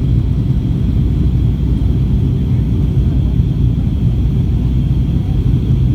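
Steady low rumble inside the cabin of a Boeing 757-200, heard from a window seat, with a faint steady high whine above it.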